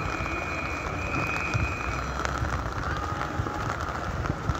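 Heavy rain falling steadily, an even hiss, with a steady high tone held for about the first two seconds.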